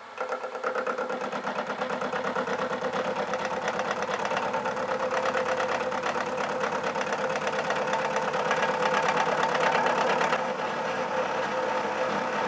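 A small metalworking machine tool running steadily: motor and gear train giving a steady whine with a fast, even rattle, slightly quieter near the end.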